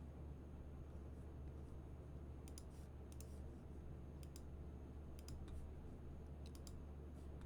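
Faint computer mouse clicks, mostly in quick pairs, scattered through the second half, over a steady low electrical hum.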